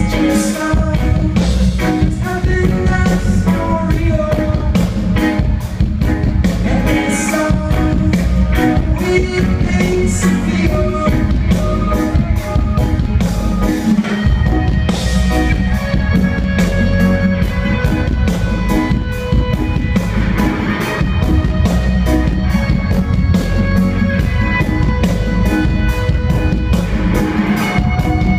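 Live reggae band playing loudly: electric guitar, bass guitar, drum kit and keyboards over a steady beat.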